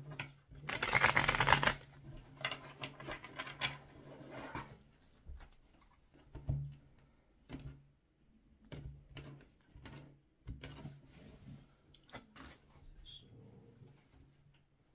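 A deck of tarot cards being shuffled by hand, with a loud rush of shuffling about a second in and more rustling after it, then the deck cut into piles and cards tapped and slid onto a table in scattered light clicks.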